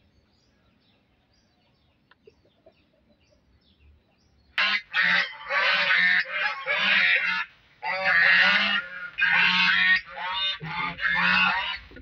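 A chicken squawking loudly in a rapid series of harsh calls that starts about four and a half seconds in, after near quiet.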